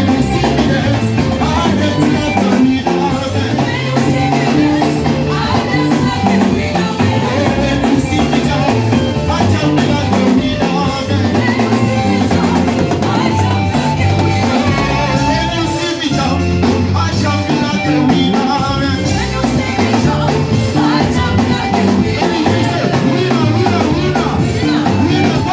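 Live praise band playing upbeat dance music with drum kit and bass, with some singing over it.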